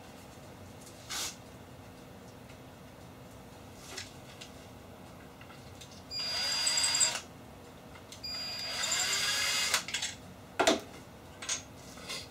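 Power drill running in two short bursts, each about a second long, starting pilot holes in the end of a wooden board through a drilling template. A few light knocks of handling come before and after.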